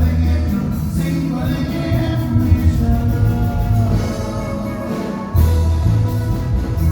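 A band playing Latin American music with a singer: steady bass notes under melodic lines.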